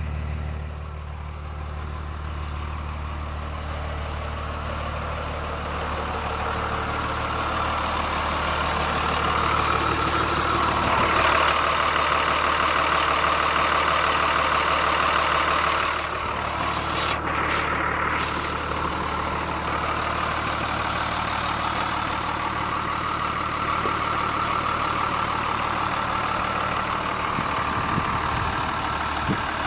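The 1999 Blue Bird TC2000 school bus's front-mounted engine idling at a steady speed. It grows louder for a while in the middle, with no change in engine pitch.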